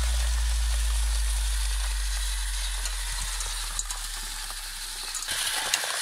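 A deep low tone, the tail of the background music, fades away slowly over a steady hiss. Near the end small stones start rattling and clicking inside the rotating wire-mesh drum of a model trommel screen.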